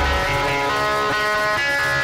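Guitar-led rock band music with held, ringing guitar chords. A deep bass note cuts off just after the start.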